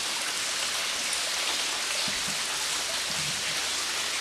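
Steady hiss of falling and splashing water.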